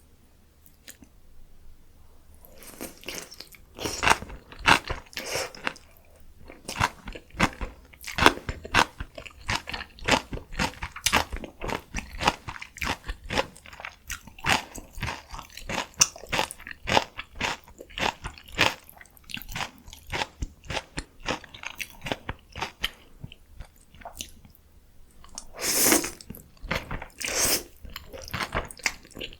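Close-miked eating: crunchy bites and chewing of spicy noodles with young summer radish kimchi, starting about two and a half seconds in, with two louder bursts of crunching near the end.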